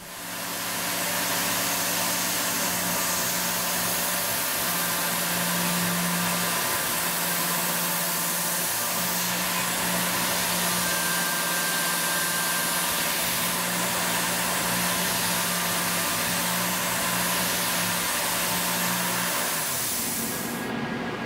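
Tormach PCNC 770 milling machine cutting aluminum with a Lakeshore 3-flute carbide end mill, a steady cutting sound with a steady hum and a strong hiss from the mist coolant. There is no chatter or vibration, the sign that the fixture and the speeds and feeds are right. Near the end the hum fades and the hiss cuts off.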